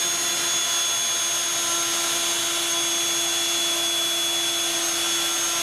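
Cordless drill running at a steady speed with an even whine, driving a 1/8-inch bit through a pre-drilled stainless steel band into the metal tubing under it.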